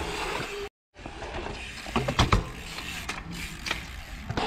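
BMX bike on a concrete skatepark: tyres rolling and the rear hub's freewheel ratcheting as it coasts, with a cluster of sharp knocks about two seconds in and a few lighter ones later. The sound cuts out completely for a moment just under a second in.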